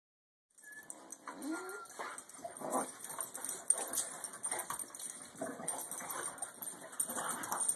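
Two dogs play-wrestling on a couch: short, scattered whines and vocal noises, with scuffling and rustling on the blankets.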